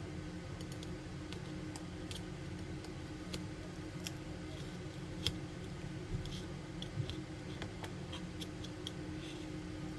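Small, scattered clicks and ticks of repair tools handling the opened iPhone 7's parts during a battery replacement, over a steady low hum.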